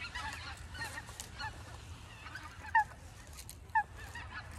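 Geese honking: a string of short calls, with two louder honks about a second apart past the middle.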